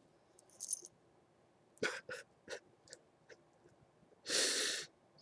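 A person breathing in short, breathy gasps, then one longer, louder noisy breath about four seconds in.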